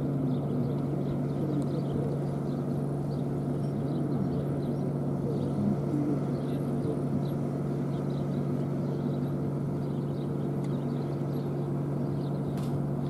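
Steady low hum, as of a motor or generator running, over faint outdoor background with small high chirps.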